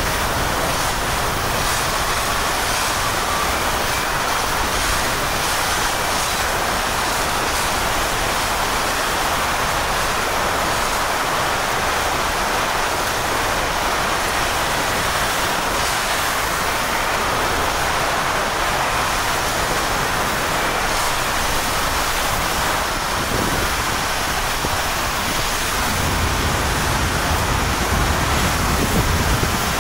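Hurricane-force wind driving heavy rain: a steady, dense rushing noise that never lets up, growing lower and stronger near the end.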